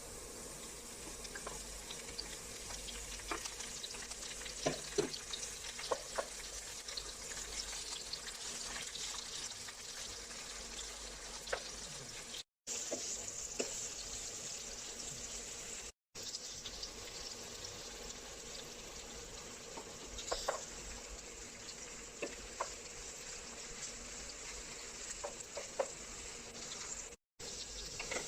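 Chicken and bell peppers sizzling in a frying pan, with scattered clicks and scrapes of a utensil stirring. The sizzle is broken by three short silent gaps.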